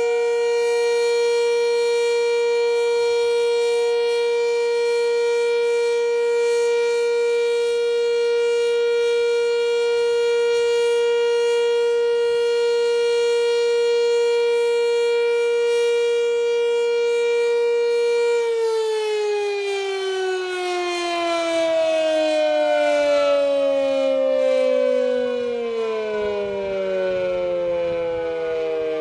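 Sentry 3V8 outdoor warning siren sounding a loud, steady tone. About two-thirds of the way through it begins winding down, its pitch falling steadily.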